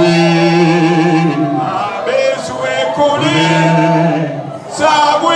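Worship singing: a man's voice holds two long notes, with other voices singing higher lines.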